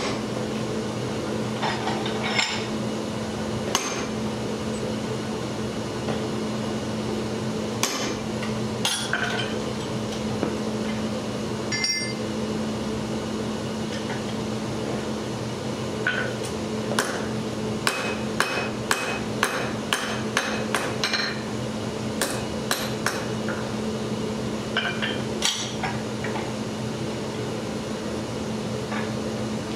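Hammer striking hot steel held in a vise, each blow with a short metallic ring: scattered single blows at first, a run of quick strikes, about three a second, a little past the middle, and a few more later on. A steady machine hum lies underneath.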